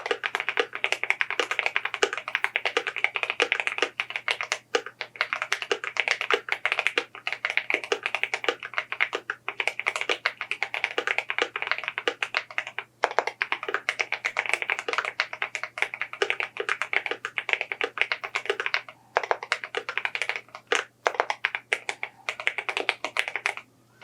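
Mechanical keyboard typed on quickly and continuously, a dense run of sharp key clicks broken by a few brief pauses, over a faint steady low hum.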